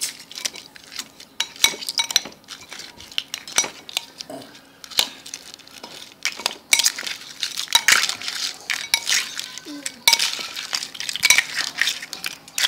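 Metal spoon stirring pickled crabs in sauce in a ceramic bowl: irregular clinks and scrapes of the spoon against the bowl and the crab shells, busiest in the second half.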